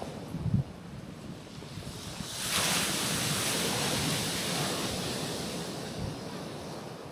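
Ocean waves washing onto a rocky shoreline. About two and a half seconds in, a wave breaks with a rush of hiss that slowly fades away, over a low rumble of wind on the microphone.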